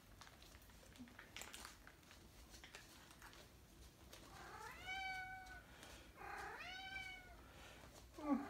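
Domestic cat meowing for food: two drawn-out meows, each rising and then falling in pitch, about a second apart, with a third starting right at the end.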